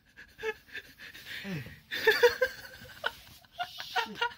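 Stifled, breathy laughter and snickering in short bursts.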